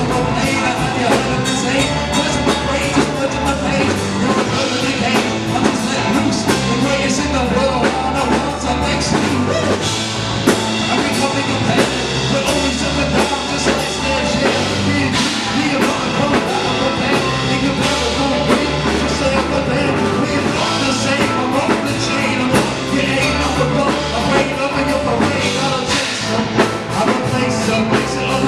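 Rock band music playing loudly and steadily: a drum kit keeping a regular beat under a bass line and other instruments.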